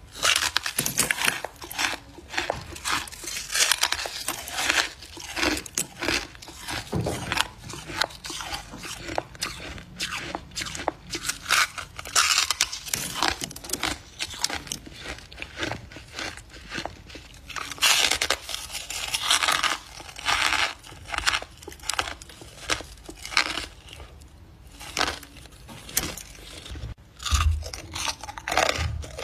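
Close-up biting and chewing of crunchy freezer-frost chunks: irregular runs of sharp, crisp crunches, with a few denser bursts of crunching.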